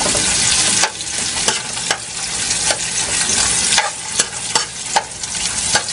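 Sliced onions frying and sizzling in hot oil on full heat, stirred with a metal spoon that scrapes and clinks against the metal pot about once a second.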